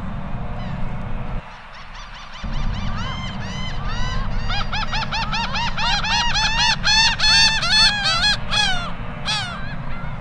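A pair of laughing gulls giving their laughing long call together: a quick run of nasal 'ha' notes that starts about three seconds in, crowds together and grows louder, then stops about a second before the end.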